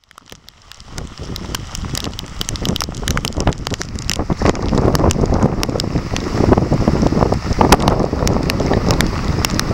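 Heavy rain and wind buffeting the microphone, with many irregular sharp taps of raindrops striking close to the camera. It fades in from silence over the first second or two.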